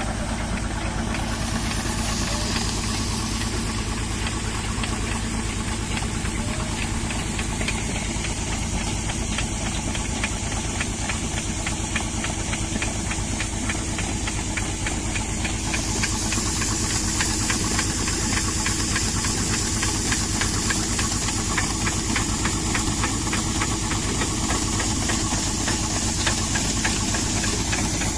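An engine running steadily with a fast, even knocking, over a continuous hiss that changes character twice.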